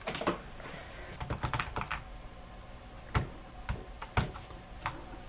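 Typing on a computer keyboard: a quick flurry of keystrokes in the first two seconds, then single key presses every half second or so.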